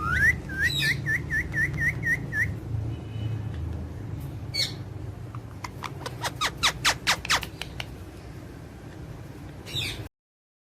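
Parrot whistling a quick run of about eight short rising notes, then a single squawk, then a fast burst of sharp chirps, over a low background hum. Another squawk comes near the end, and then the sound cuts off abruptly.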